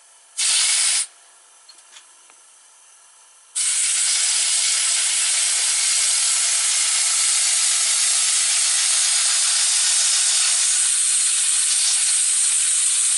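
Compressed air hissing through the air line into a model diagonal paddle steamer engine. A short blast comes about half a second in, and from about three and a half seconds a steady loud hiss follows. The builder puts the engine's weak running down to air leaks and a poor air supply.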